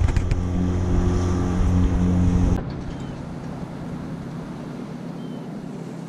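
Motorboat engine running with a steady low hum, which stops abruptly about two and a half seconds in and leaves a quieter steady background hum.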